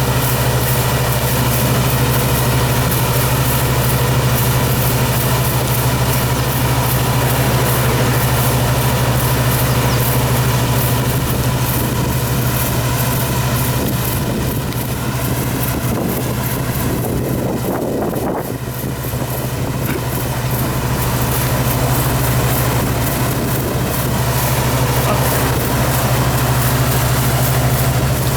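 Yanmar rice combine's engine running steadily with a constant low hum, easing off slightly for a moment a little past the middle.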